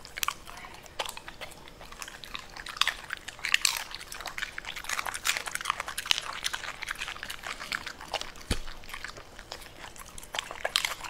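A Pembroke Welsh Corgi biting and chewing raw red cabbage leaves: a fast, irregular run of crisp, wet crunches.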